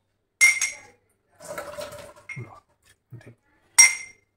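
Two sharp clinks of a kitchen vessel being knocked or set down, each ringing briefly, about three seconds apart, with quieter handling noise between.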